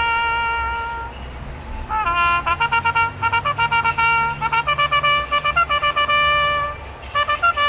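Solo brass horn sounding a military bugle call. It holds one long note that fades out, and after a short pause plays a run of quick short notes broken by a few longer held ones.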